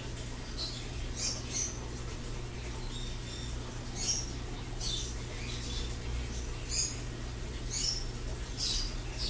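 A pet bird making short, high, squeaky chirps, a dozen or so scattered irregularly, over a steady low hum.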